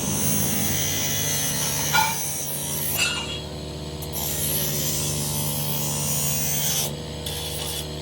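Workshop machinery runs with a steady hum and a hiss that cuts out and comes back twice. Two ringing metal clanks come about a second apart, near two and three seconds in.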